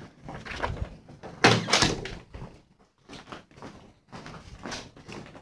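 Doors being opened and closed, handles clicking, with a loud bang about a second and a half in, followed by smaller knocks and thuds.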